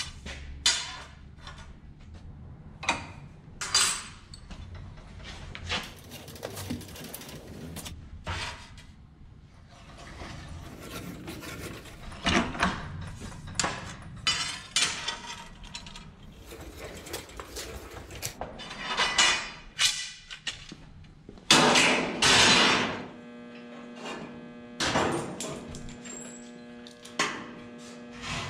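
Steel tubing clanking and knocking as it is handled and worked through a small roller clamped in a vise to arch it: a run of irregular metal clanks and scrapes. A steady hum comes in near the end.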